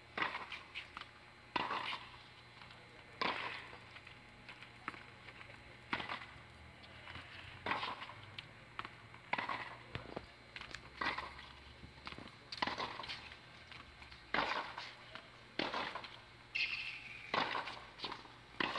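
Tennis balls struck by rackets in a steady rally, one sharp pop with a short ring about every one and a half seconds.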